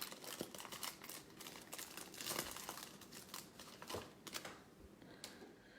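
Foil wrapper of a trading-card pack crinkling and tearing as it is worked open by hand, a rapid run of crackles that dies down near the end.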